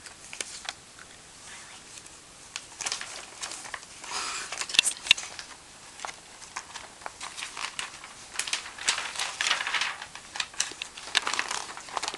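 Glossy paper and magazine cutouts rustling and crinkling as they are shuffled and handled, in irregular bursts, with two sharp snaps about five seconds in.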